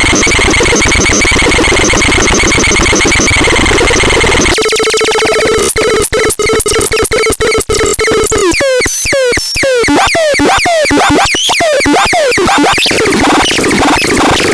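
Electronic synthesized sound effects from a KASMAX sound device: harsh buzzing tones, then about four and a half seconds in a steady tone with a rapid run of downward-sweeping zaps, several a second, before turning to a denser electronic noise near the end.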